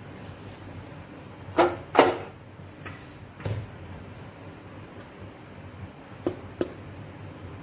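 Cake batter being mixed by hand in a plastic stand-mixer bowl, with several sharp knocks over a steady low hum. The knocks come as a close pair about a second and a half in, the second of them the loudest, then two softer ones, then another close pair about six seconds in.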